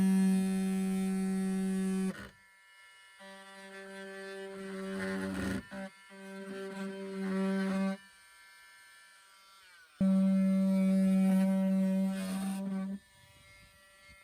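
Handheld electric power tool cutting away plastic wheel-arch liner, switched on and off in three runs of a few seconds each, its motor giving a steady buzzing hum that winds down in pitch when released.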